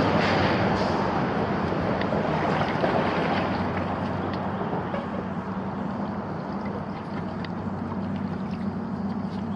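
Fast creek current rushing steadily around a kayak, with a low steady hum underneath and a few faint ticks and splashes, easing slightly toward the end.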